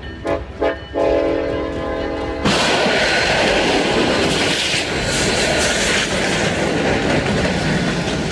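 Freight locomotive horn blaring in short blasts and then a long one, cut off about two and a half seconds in by a sudden loud crash as the train strikes a tractor-trailer stuck on the crossing. The crash runs on as a steady loud roar of the train ploughing through the wreck.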